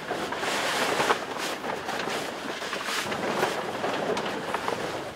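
A giant sheet of paper crackling and rustling as it is pulled and shaped by hand, a dense run of irregular crinkles.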